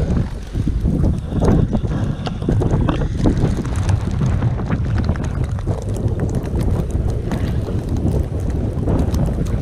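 Wind buffeting the microphone: a loud, unsteady low rumble that swells and dips in gusts.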